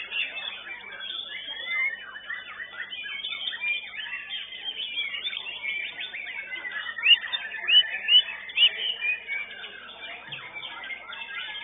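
White-rumped shama (murai batu) singing in a bird-song contest: a continuous, busy stream of fast chirps and whistles, with a few loud, sharp whistled notes about seven to nine seconds in. Other caged birds sing over it.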